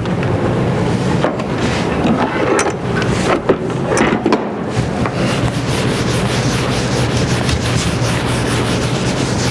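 Whiteboard eraser rubbing across a whiteboard, wiping off marker writing, over a steady low room hum.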